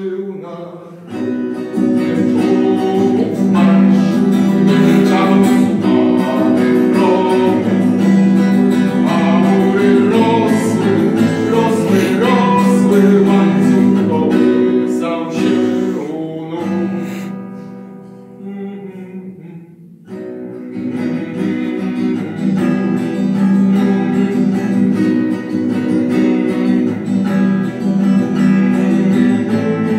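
A classical guitar being played, a continuous run of plucked notes and chords. The playing thins out and drops away for a few seconds about two-thirds of the way through, then comes back up at full strength.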